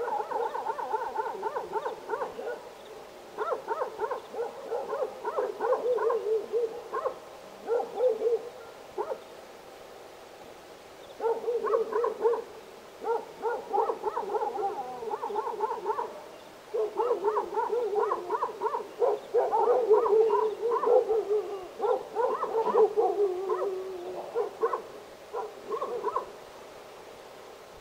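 Several domestic dogs barking and howling together, their calls overlapping in bouts. There is a short lull about a third of the way through, and the calls thin out near the end.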